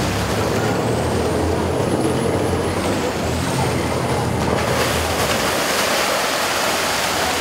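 Motorboat engine running with a low steady hum under the rush of water and wind along the hull; the engine hum drops away about five seconds in, leaving the water noise.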